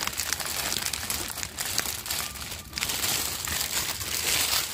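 Firewood fire burning under an iron cauldron, crackling and popping steadily with many small snaps.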